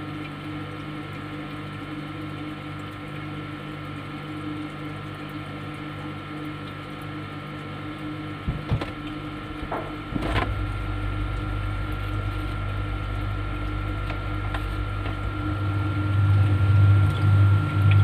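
Refrigerator running with a steady hum and a faint high tone. A few clicks come about nine to ten seconds in, after which a deeper low hum comes on and grows louder near the end.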